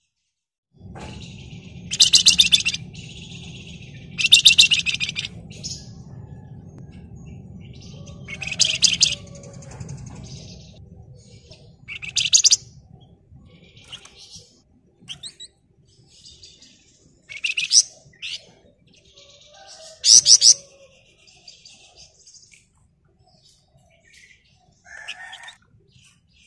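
Flamboyan songbird singing in loud, rapid rattling trills, about six short bursts with softer chirps between them. A low rumble runs underneath for the first ten seconds.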